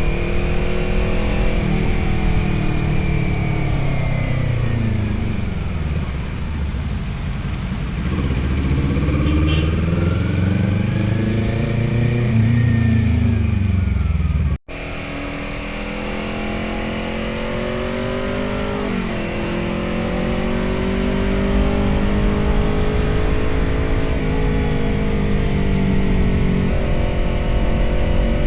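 Motorcycle engine and exhaust while riding: the revs fall and climb again through the first half. After a sudden brief cut about halfway through, it runs steadily with the revs slowly rising and small changes in pitch.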